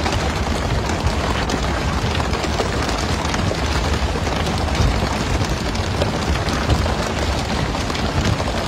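Steady rush and patter of water spraying along the side of a pole-and-line fishing boat and churning sea, over a low engine rumble, with scattered knocks as fish are swung aboard onto the deck.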